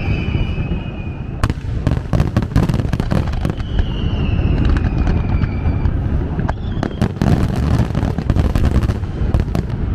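Fireworks display: a dense run of bangs and crackling shell bursts over a continuous low rumble. A high whistle glides down in pitch near the start and again midway.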